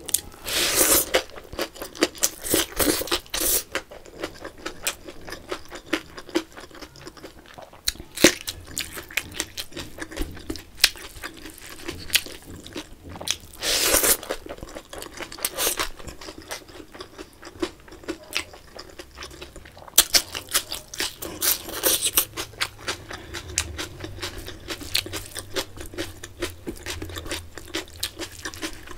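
Close-miked chewing and crunching of mouthfuls of rice with fried potato sticks eaten by hand, a run of short crackly clicks with a few louder bursts, mixed with wet squishes of fingers gathering food on the plate.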